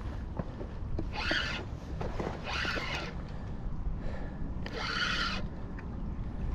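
An 8000 Daiwa Saltist spinning reel runs in four short rasping bursts while a big snook is being fought on the line, over a steady low rumble of wind on the microphone.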